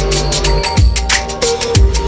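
Electronic background music with a steady beat: deep kick drums about once a second under fast hi-hat clicks and held synth notes.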